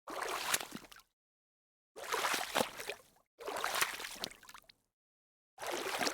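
Water splashing in four separate bursts, each about a second long, starting abruptly and trailing off, with dead silence between them.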